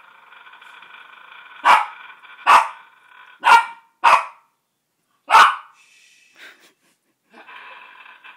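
A dog barks five times, sharp and loud, at a faint steady droning noise that is heard before the barks and starts again near the end: the dog objecting to the strange sound.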